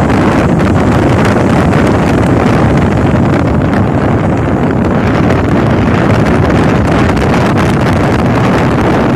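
Wind buffeting a phone's microphone over the steady rush of breaking ocean surf.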